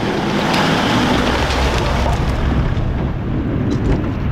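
Toyota LandCruiser Troopy's engine working under load, with water and mud churning around the tyres as it struggles to climb a boggy river exit.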